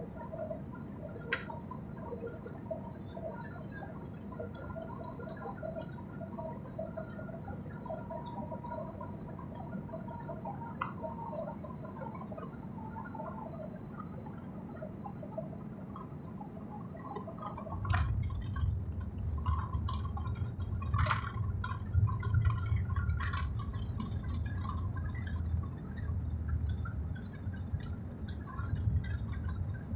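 Airliner cabin noise on final approach: a steady hiss with a thin high whine. About eighteen seconds in, the main wheels touch down and a heavy low rumble with scattered knocks takes over as the plane rolls along the runway.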